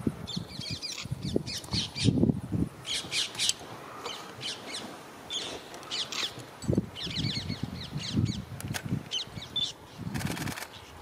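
Birds calling and chirping in quick, short phrases, with crow-like caws among them. Irregular low rumbles come and go underneath, and a short hiss sounds near the end.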